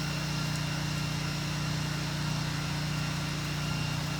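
Pressure washer's small gas engine running steadily at constant speed, an even low hum that does not change.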